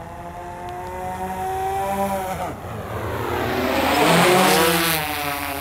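DJI Matrice 200-series quadcopter flying at full speed in sport mode, its propellers and motors making a steady pitched hum. It grows louder as it comes straight back toward the microphone, peaks about four to five seconds in, then eases off slightly.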